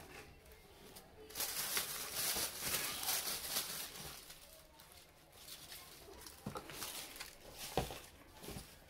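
Rustling and crinkling of white tissue wrapping paper as it is pulled out of a cardboard shoe box, loudest between about one and a half and four seconds in. Quieter handling follows, with a few sharp knocks near the end as the shoe and box are moved.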